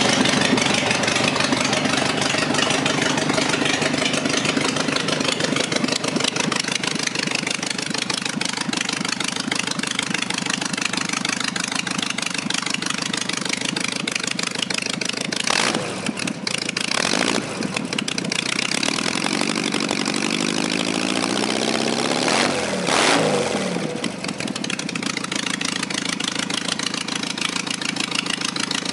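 Newly built, broken-in VW 1835 cc air-cooled flat-four with dual 40 carburetors idling steadily. About 19 seconds in it is revved up over a few seconds, then drops quickly back to idle.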